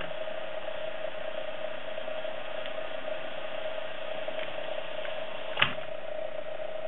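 AKAI GX-77 open-reel tape deck fast-rewinding: a steady mechanical whir of the spinning reels and transport. A single sharp click comes about five and a half seconds in as the transport stops.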